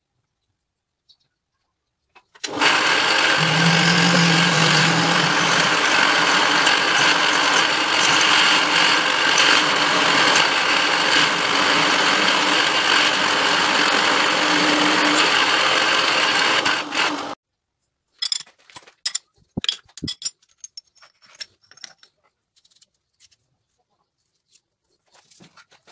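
Drilling machine running as a twist drill bores through a metal block: a loud steady whir with cutting noise that starts a couple of seconds in and stops suddenly about fifteen seconds later. Then light clicks and taps as the drilled block and chips are handled.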